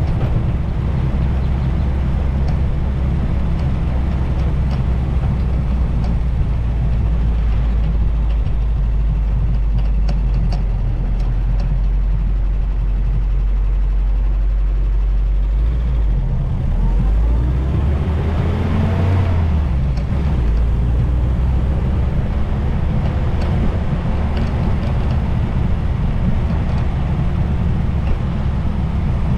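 Vintage Willys Jeep engine running on a drive, a steady low drone. About two-thirds of the way through, the engine note rises and then falls once before settling back into the drone.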